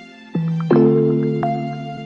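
Background music: soft keyboard chords, with new notes struck about a third and two-thirds of a second in, each fading slowly.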